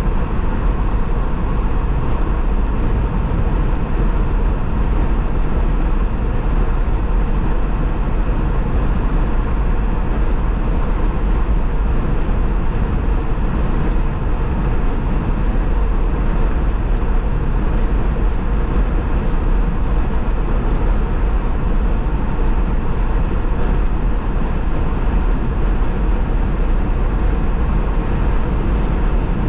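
Steady road noise of a car cruising at freeway speed: tyre and wind noise with a deep low rumble, holding an even level throughout.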